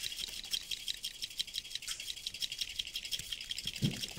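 Metal cocktail shaker tin shaken hard, a fast, even rattle of liquid thrown back and forth inside it. This is a dry shake, without ice, to aerate and foam the cocktail.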